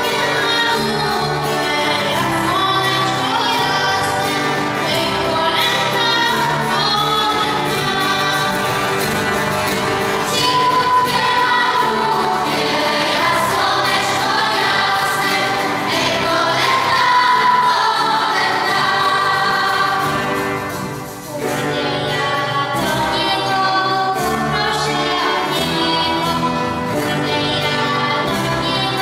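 Girls' choir singing a Polish Christmas carol (kolęda) in unison-style verses, with a brief dip in loudness about two-thirds of the way through as one verse ends and the next begins.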